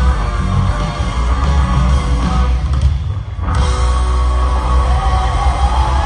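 An Argentine rock song playing, band music with guitar. The upper range briefly drops out about three seconds in, then the full sound returns.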